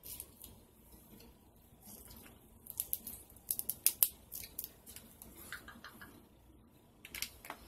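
Crab and shrimp shells being broken open and peeled by hand: a cluster of sharp, crisp snaps about three to five seconds in, and a couple more near the end.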